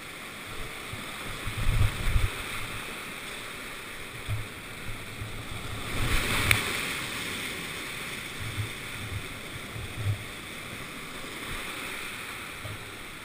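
Rushing whitewater of a steep creek rapid, heard close up from a canoe running it, with scattered low thumps of water and hull. A louder surge of splashing about six seconds in as the boat drops into the foam.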